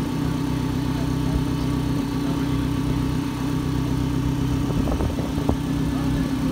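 Car engine idling steadily, a low even hum with no revving, and a couple of faint clicks about five seconds in.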